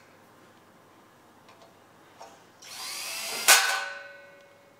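Cordless drill driving a 3/4-inch screw into a threaded insert in a metal display-stand frame: the motor whirs up for about a second and ends in a sharp clack, which fades out over the next second.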